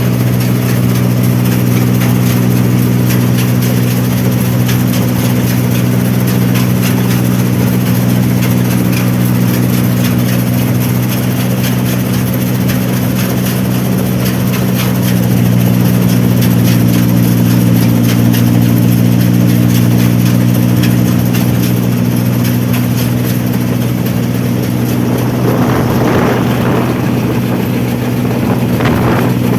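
Rice combine harvester's engine running steadily at a constant speed, with two brief swells of noise near the end.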